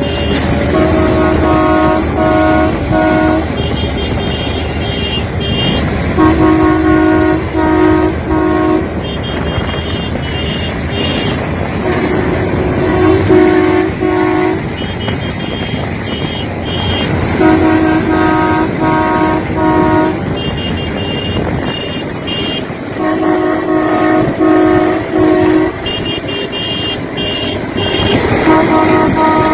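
A horn on a train sounding crow-like caws in groups of three or four short toots. A lower-pitched group and a higher-pitched group take turns every few seconds in a regular, repeating pattern, over the steady running noise of the train.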